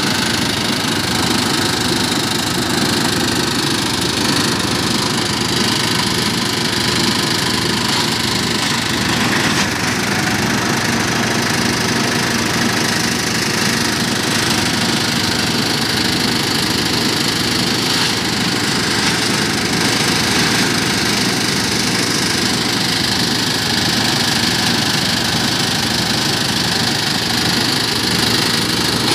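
Single-cylinder diesel engine running steadily under load, belt-driving a branch chopper whose rotor whirs as branches are fed in and shredded.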